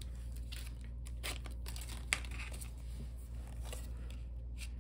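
Pokémon trading cards being handled: faint light taps and rustles, the sharpest about two seconds in, over a steady low hum.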